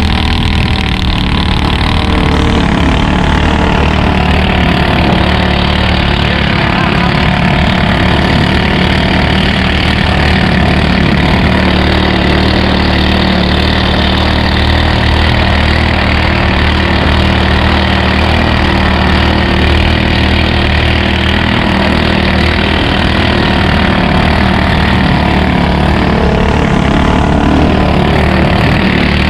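A fast long-tail speedboat's engine running loud and steady, holding an even pitch.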